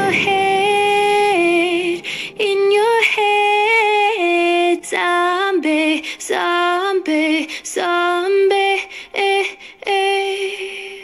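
Background music: a woman's voice sings a slow melody of held notes that step up and down, and stops shortly before the end.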